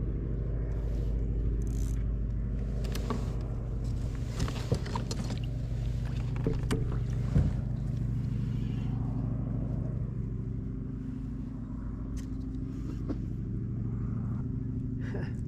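Low, steady engine drone throughout, with a few sharp clicks a few seconds in.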